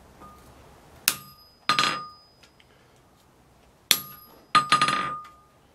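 Hammer striking a hand punch to drive a hole through a hot steel bar on an anvil: two pairs of blows, each a sharp light tap followed by a heavier strike that rings metallically.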